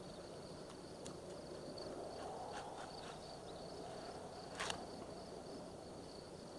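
Faint outdoor ambience: a steady, high insect trill like crickets over a low hiss, with a few soft clicks and one sharper click a little past the middle.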